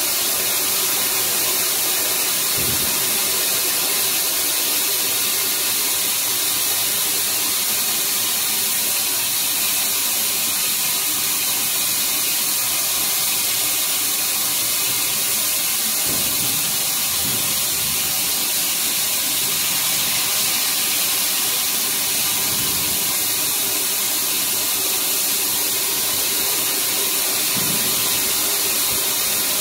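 Bodor laser tube cutter's cutting head cutting a 10 mm stainless steel tube, giving a loud, steady hiss of the gas jet. A few faint low knocks come and go under it.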